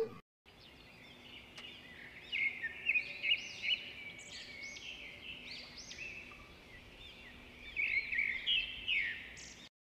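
Small birds chirping and calling in quick runs of short, high notes over a faint outdoor background. The calls begin about two seconds in and are busiest near the end.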